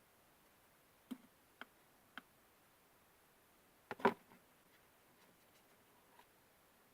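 Handling noises of a cut-open plastic glow stick over a bowl: three light clicks, then a louder knock about four seconds in, with a few faint ticks after.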